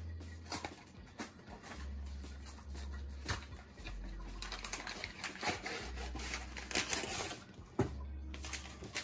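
Cake mix packaging being opened by hand: irregular crinkling, crackling and tearing of the cardboard box and the plastic bag inside.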